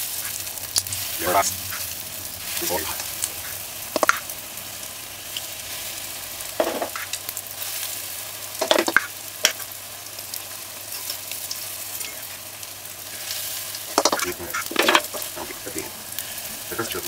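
Hot oil on very high heat sizzling steadily as spoonfuls of saltfish fritter batter fry in a deep pot, with short sharp crackles every few seconds as more batter goes in.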